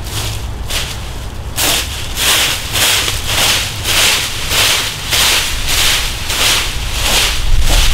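Plastic leaf rake sweeping through dry fallen leaves, a rustling scrape about one and a half times a second, louder from about a second and a half in.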